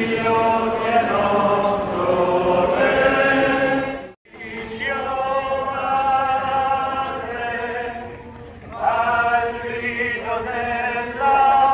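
A group of voices singing a devotional hymn together. The singing breaks off sharply about four seconds in, then carries on.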